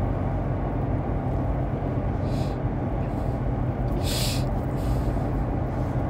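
Steady low rumble of a car heard from inside its cabin, with two short hissing sounds about two and four seconds in.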